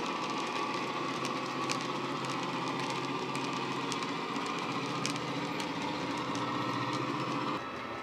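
Model Class 68 diesel locomotive's JMC sound file playing through an EM2 speaker: a steady, bass-heavy diesel engine drone with scattered sharp clicks from the train on the track. The sound drops suddenly near the end.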